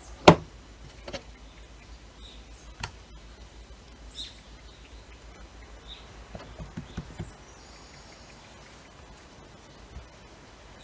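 Kitchen utensils set down on a wooden cutting board, one sharp clack just after the start and a few lighter clicks after it, then a run of soft taps as hands fold and press a sheet of croissant dough on the board.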